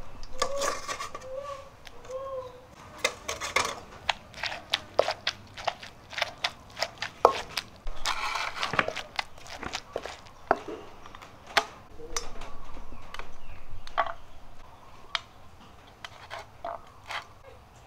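Wooden pestle pounding dried red chilies and garlic into paste in a clay mortar: repeated dull knocks, at times about two a second.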